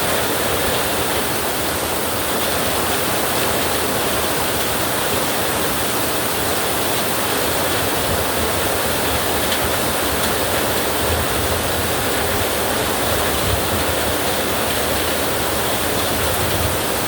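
Heavy rain falling as a steady, dense hiss.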